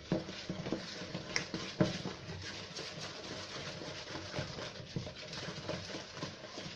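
Thick whole-wheat cake batter being stirred in a plastic bowl: steady wet scraping and squelching with small irregular knocks, one stronger knock about two seconds in.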